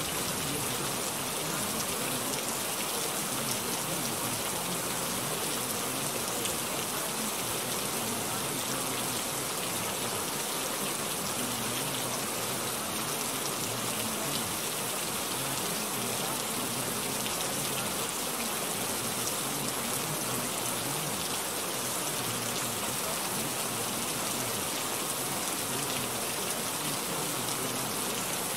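Steady rain sound, an even, unbroken hiss of falling rain with no pauses or changes.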